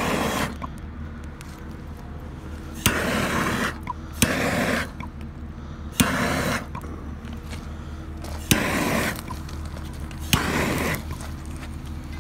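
Handheld gas torch fired in six short bursts, each opening with a sharp click and followed by a hiss lasting under a second, as it lights a burn rope laid along a railway rail.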